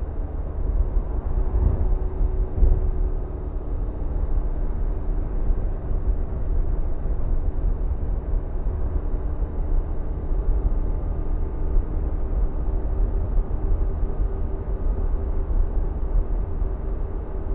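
BMW R1100RT's air/oil-cooled boxer twin running steadily at cruising speed, mixed with wind and road noise at the rider's position behind the fairing.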